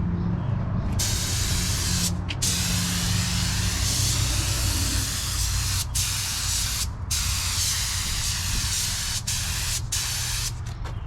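Paint spray gun hissing in long passes as the truck's cab is sprayed, the hiss breaking off briefly several times as the trigger is let go, over a low steady hum.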